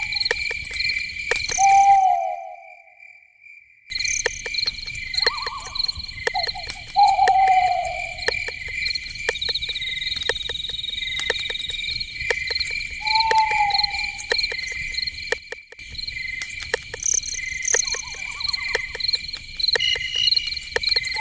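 Night forest ambience: crickets chirping steadily in fast pulses, with several short falling calls from a night animal, such as an owl, over them. About two seconds in the sound cuts out for nearly two seconds, then returns.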